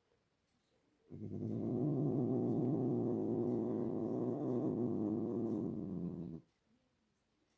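A domestic cat making a long, low, steady vocal sound that starts abruptly about a second in and stops suddenly about five seconds later.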